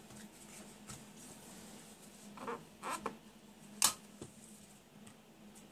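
Faint handling noises: a few soft rustles and clicks as a circuit board and small parts are moved about on a glass work sheet, the sharpest click about four seconds in. A faint steady hum lies underneath.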